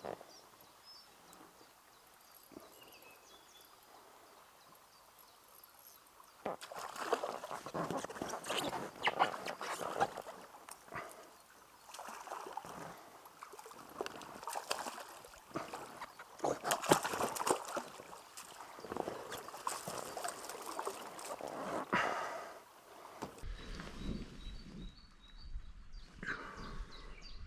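Water splashing in irregular bursts as a hooked chub thrashes at the surface and is brought to the net beside an inflatable packraft. The splashing starts about six seconds in after a quieter stretch. Near the end a low rumble takes over.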